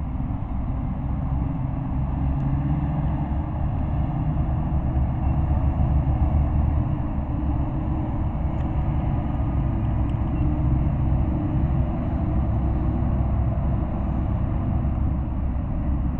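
Steady low rumble of road traffic, with a fuel tanker truck passing among it.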